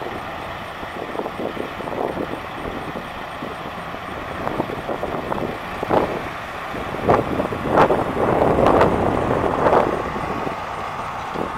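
1979 Chevrolet C10 pickup with a 350 V8 driving by, engine and road noise rising and falling, loudest about seven to ten seconds in.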